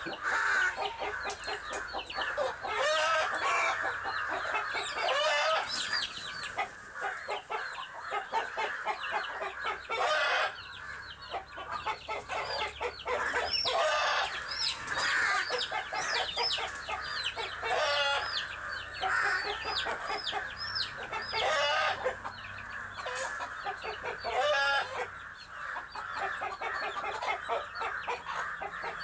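Chickens clucking and squawking in a dense, continuous run of short calls, the agitated noise of a hen squaring off against a crow.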